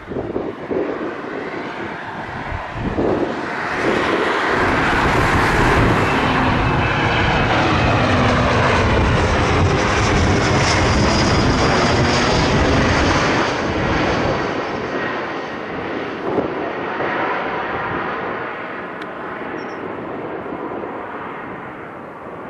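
Airliner's engines passing close by on landing, swelling to full loudness about four seconds in, staying loud for about ten seconds, then fading.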